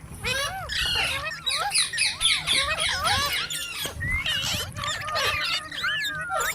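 Rose-ringed (Indian ringneck) parakeets chattering: many quick, overlapping chirps and squawks that swoop up and down in pitch.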